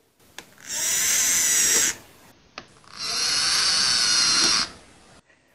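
Common wall gecko giving two harsh, raspy distress calls, each lasting a second or more, with a click between them: a defensive, bad-tempered reaction to being poked.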